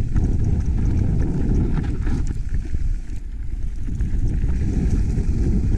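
Wind buffeting the microphone over the rumble and rattle of a mountain bike riding down a rough trail, with a brief lull about three seconds in.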